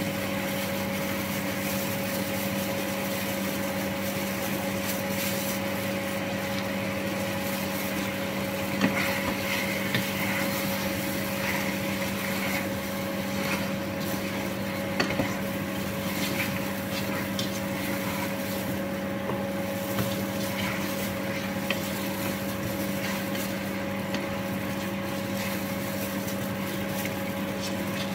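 Steady mechanical hum from a kitchen appliance, such as a cooker fan, with a wooden spoon stirring food in a pot and knocking against it a few times.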